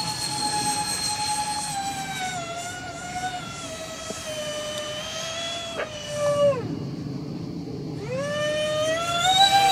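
Freewing Su-35S radio-controlled model jet's electric ducted fans whining steadily, the pitch slowly sagging. About six and a half seconds in the whine drops away steeply as power comes off, then climbs back up about a second and a half later as the throttle is opened again.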